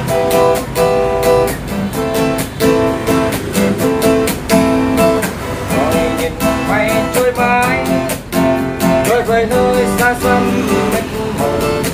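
Enya X4 Pro carbon-fibre acoustic guitar played unplugged: chords strummed in a steady, even rhythm, several strokes a second.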